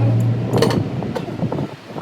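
A steady low hum that dies away about half a second in, then a single sharp knock and a few lighter clicks.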